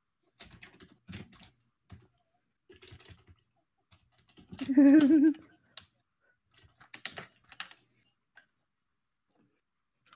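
Computer keyboard typing in short bursts of clicks. About halfway through there is one brief, loud, wavering pitched vocal sound.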